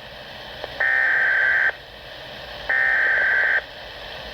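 Weather radio SAME alert header: two bursts of digital data tones, each about a second long and about two seconds apart, a harsh buzzy warble over the receiver's steady static hiss. They are the last two of the three repeats of the coded header that sets off alert receivers before the spoken warning.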